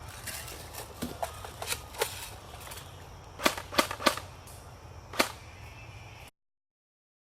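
Airsoft guns firing single shots as sharp pops: a few fainter ones in the first two seconds, then three loud ones in quick succession about three and a half seconds in, and one more a second later.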